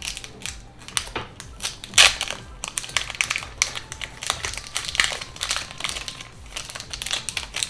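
Foil wrapper of a Pokémon card booster pack crinkling as it is handled, in irregular crackles with a sharper, louder crackle about two seconds in.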